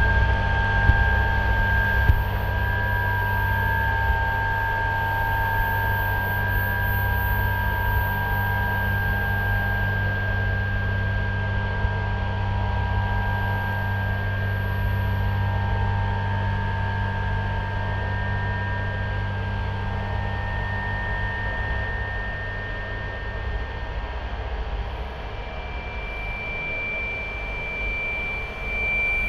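Electronic drone: a steady low rumble under several held high tones, one of them wavering slightly. A further higher tone enters near the end.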